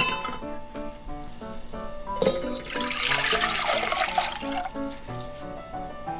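Water poured from a stainless steel bowl into an enamel pot on a gas stove: a splashing pour lasting about two and a half seconds, from a little after two seconds in. It is preceded by a sharp knock at the very start as the pot is set on the burner grate, and there is background music with a steady melody throughout.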